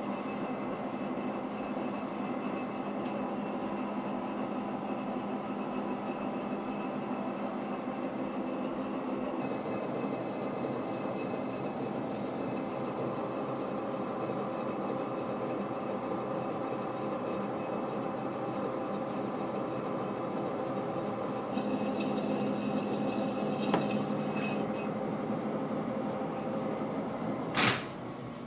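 Monarch lathe running, with a boring bar taking a slow-feed finishing cut inside a steel pipe held in a steady rest: a steady mechanical hum with several steady whining tones. A sharp clack comes near the end, after which it runs quieter.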